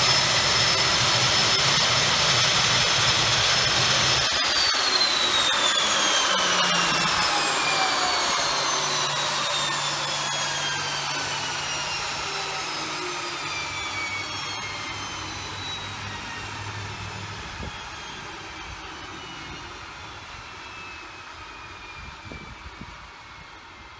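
Pratt & Whitney Canada PT6A-28 turboprop engine running with a high, steady turbine whine, then shut down about four seconds in. The whine glides steadily down in pitch and fades as the turbine and propeller spin down.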